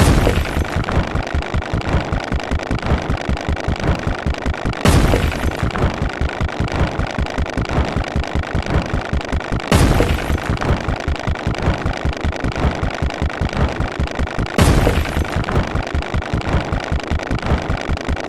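Low-pitched rock-smashing sound effect, crashing four times about five seconds apart, over a fast steady stream of short repeated low sound-effect pulses.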